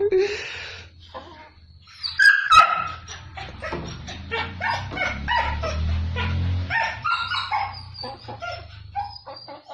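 Animal calls: a run of short, irregular yelps and squawks, the loudest a little after two seconds in, over a low steady hum.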